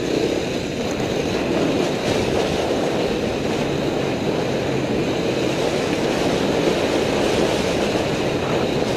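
Off-road motorcycle running along a rough dirt trail, heard from a camera riding on the bike or rider: a steady, dense rumble of engine, wind and rattle with no clear pitch.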